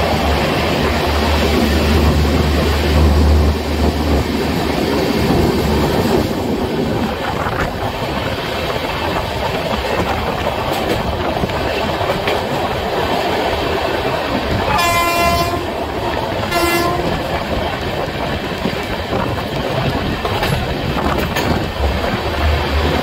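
Passenger train running at speed, heard from an open coach door or window: a steady rumble and clatter of wheels on the track with wind. There is a heavier low rumble for the first few seconds while still in the tunnel. About two-thirds of the way through come two short blasts of the train horn, the second shorter than the first.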